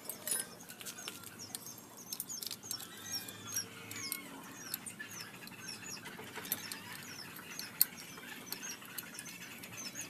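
Hand work with a box-end wrench on a rusted motorcycle swing arm: scattered metallic clicks and clinks, with one sharp clink about three quarters of the way through, over a steady run of short, high chirps.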